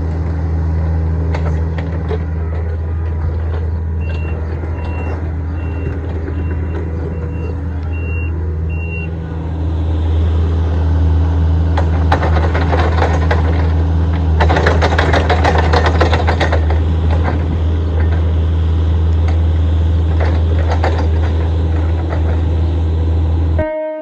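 Kobelco SK55 mini excavator's diesel engine running steadily under load while grading, working harder from about ten seconds in. Its travel alarm beeps about twice a second between about four and nine seconds in, and there is a stretch of metal clattering and scraping in the middle.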